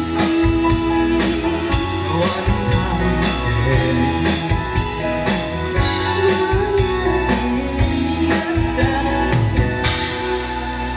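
A song played by a live band with drum kit, bass and guitar, with a voice singing long held notes over it.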